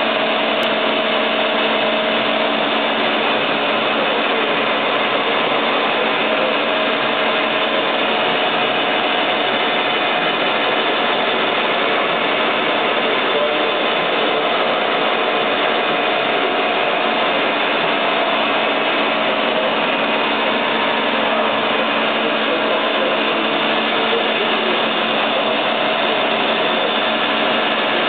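Puma 700 CNC lathe running with its spindle turning: a steady, even mechanical din with a few held tones, unchanging throughout.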